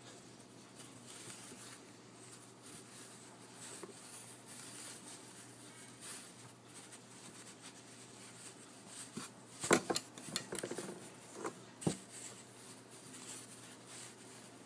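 Soft rustling of a crocheted yarn scarf being handled and turned over close to the microphone, with a cluster of sharp clicks and knocks about ten seconds in and another near twelve seconds.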